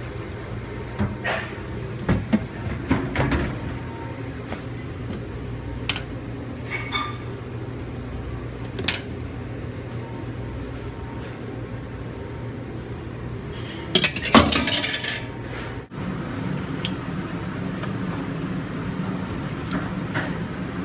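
Metal kitchenware clinking and knocking, from a bowl and mesh strainer being handled, over a steady low hum. A louder flurry of clatter comes about fourteen seconds in.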